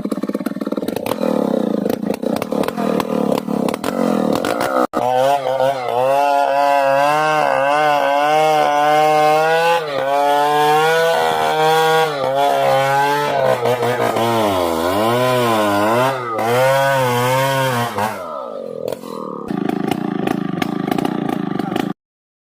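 Engine-driven saw cutting into a large log, its engine pitch repeatedly rising and falling as the blade bites, with a rougher clattering stretch about five seconds in and the sound cutting off just before the end.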